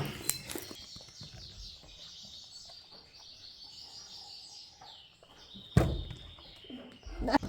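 Faint bird chirping, with a thump about six seconds in.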